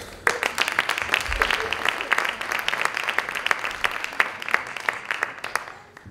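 Audience applauding: many hands clapping densely, thinning out and fading away near the end.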